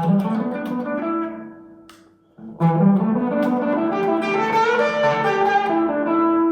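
Fender HSS Telecaster electric guitar on its bridge humbucker, played through a Vox AC30 amp: a phrase of single notes that dies away about two seconds in, then a second, busier phrase whose last note rings on. The tone is quite dark, a bit too dark for the player's taste.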